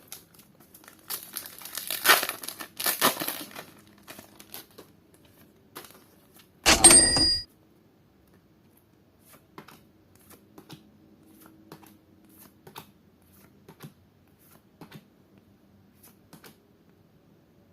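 A foil Pokémon card booster pack being torn open, with crinkling, followed by faint soft clicks of cards being handled. About seven seconds in there is a brief, loud burst carrying a few high, steady ringing tones, the loudest sound here.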